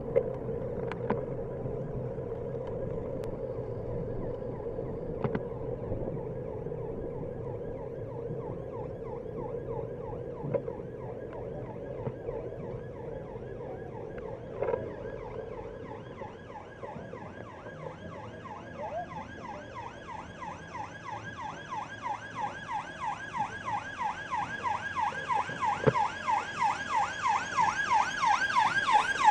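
Ambulance siren wailing in a fast repeating rise-and-fall, faint at first and growing steadily louder as it approaches, over the steady rumble of riding on a bicycle with a few rattling clicks.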